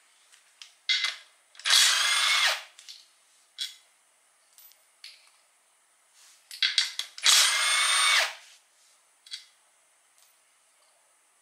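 A small power driver running twice, about a second each time, with a whine that rises and bends in pitch as it spins out the transmission's lower pan bolts. Light clicks and taps of tools and bolts between the two runs.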